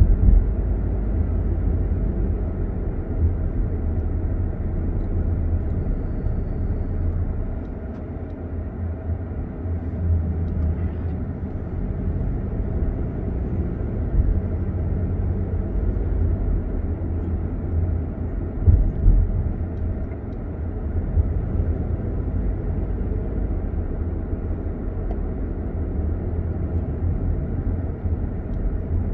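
Car driving along a street, heard from inside the cabin: a steady low rumble of engine and tyre noise. There is a brief thump shortly after the start and another about two-thirds of the way through.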